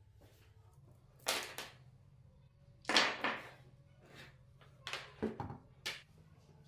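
A run of knocks and clatters as hardware and a trim router are set down on a workbench, about seven in all, the loudest about three seconds in. A faint steady low hum runs underneath.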